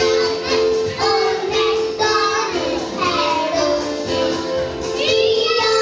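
Group of young kindergarten children singing together over backing music with a steady held note underneath.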